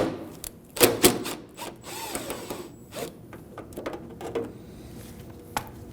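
Ratchet clicking in short, irregular bursts as it turns a T30 Torx bolt out of the door handle mount inside a car door.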